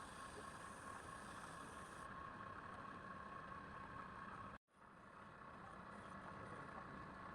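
Wood lathe running steadily with a constant motor hum and whine. The sound cuts out completely for an instant about four and a half seconds in, then comes back.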